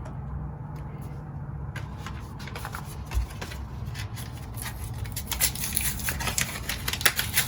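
Small clicks and rustling of a keypad deadbolt's 9-volt battery and its clip being handled, busier in the second half. A dull bump about three seconds in.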